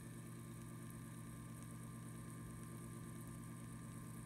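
Brand-new 2 RPM pellet stove auger gearmotor, a better ball-bearing motor with heavy magnets and a sealed output shaft, running unloaded with a steady, low, pretty quiet hum and no clanking: the sound of a healthy auger motor.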